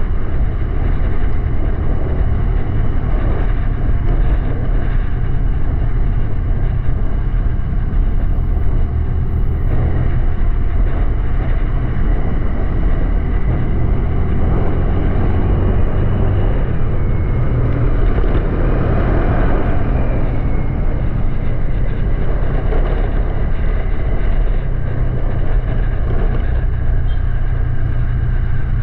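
Honda Click 125i scooter's single-cylinder engine running at riding speed, under steady wind rush on the microphone.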